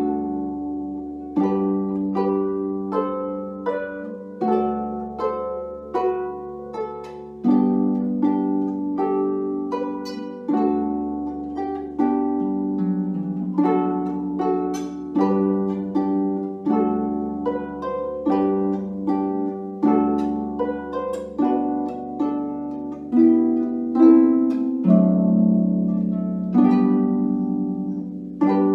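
Large concert harp played solo: plucked strings ringing out in flowing broken chords, each note striking and fading, over deeper bass notes that change every two seconds or so.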